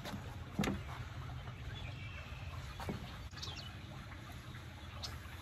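Quiet outdoor ambience with a few faint bird chirps, and one sharp small knock about half a second in.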